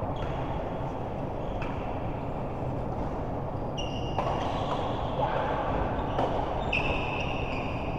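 Sports hall during a doubles rally: a steady hall rumble, with short high squeaks of shoes on the court floor from about halfway through and a few sharp knocks.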